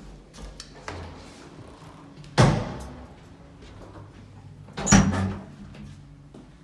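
Two loud bangs of heavy wooden panelled doors swinging shut, about two and a half seconds apart, each with a short echo.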